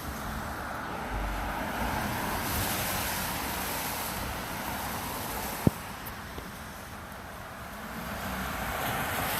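A vehicle engine running under a steady rush of noise, with one sharp click about halfway through.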